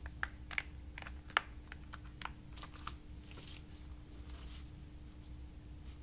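Plastic disc case being handled: a quick run of light clicks and taps, one sharp click about a second and a half in. Then soft rustling as the case and a paper booklet are laid down on crumpled paper, over a faint steady hum.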